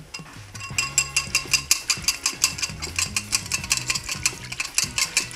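Metal wire whisk beating a thin batter in a ceramic bowl: quick, regular clinks of the wires against the bowl, starting about half a second in.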